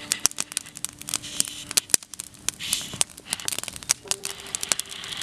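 Wood fire in a metal fire pit crackling and popping with sharp, irregular snaps. The last banjo note fades out in the first second or two.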